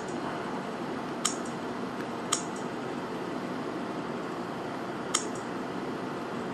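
Three short, sharp clicks as a finger taps through menus on an Android phone's touchscreen, the first about a second in and the last near the end, over a steady background hiss.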